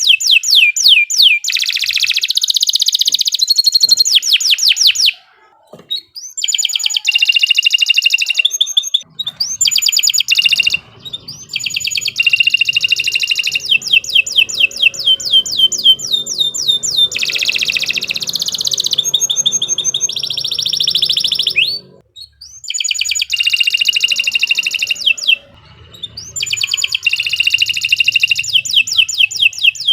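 Domestic canary singing long, fast song phrases of rapid trills and chirps, with a few brief pauses between phrases.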